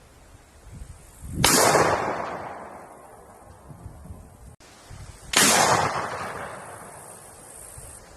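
Two single gunshots about four seconds apart, each a sharp loud crack followed by an echoing tail that fades over a second or so.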